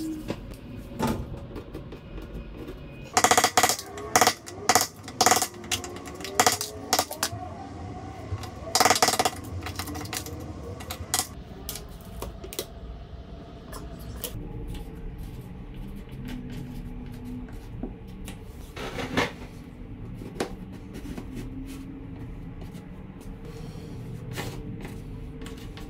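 Sharp clicks and rattles of a metal tape measure being pulled out, laid against the wall and let back in: a close run of strokes a few seconds in, then a few single clicks later.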